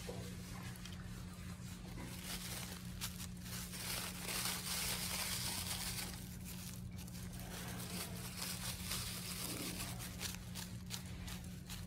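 Brown paper towel being handled and crumpled, a rustling, crinkling sound that is loudest a few seconds in, with short crackles near the end. A steady low hum runs underneath.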